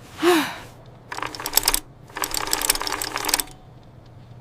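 Two bursts of rapid clicking, each lasting about a second, after a short swish with a brief rising-and-falling tone at the start.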